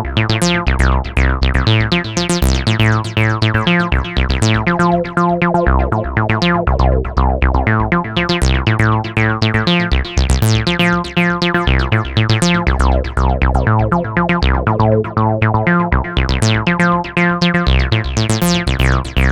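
A TB-303-style acid synthesizer playing a fast sequenced pattern in chords. Each note has a bright filter sweep that closes down quickly, over a shifting low bass line.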